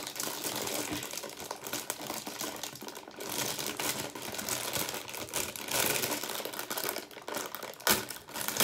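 Plastic cereal-box liner bag crinkling and rustling as it is pulled and worked at to get it open, with a sharp tearing snap near the end.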